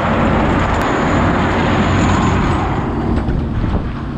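Steady low hum of a trawler's engine and deck machinery under a loud rush of wind and churning sea at the stern; the rush eases about three seconds in.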